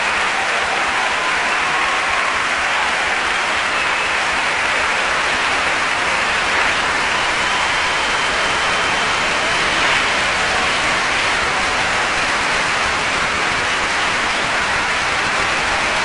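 Audience applauding, a steady dense clapping that holds at the same level throughout.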